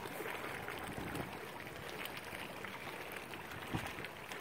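Sea water gently lapping and washing, a steady noise with a soft knock near the end.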